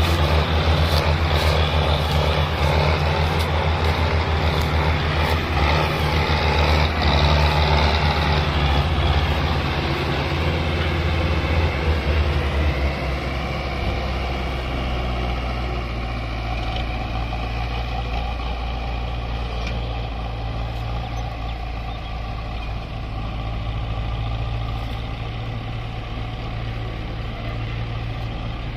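Tractor diesel engines running under load, hauling a heavily loaded sugarcane trolley with a second tractor pushing from behind. The engine note changes and the sound gets quieter about halfway through.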